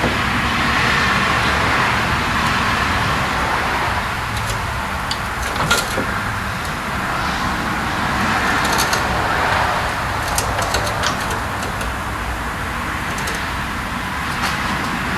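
Steady shop background noise with scattered light metallic clinks and taps from tools and parts as a transmission is worked loose. The sharpest clink comes about six seconds in.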